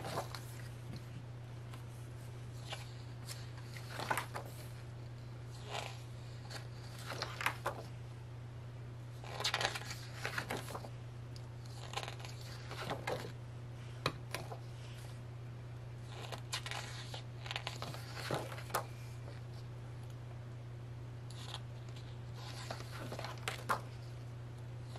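Short, scattered rustles and crinkles of paper and packaging being handled, as pages of the DVD set's photo book are turned, over a steady low hum.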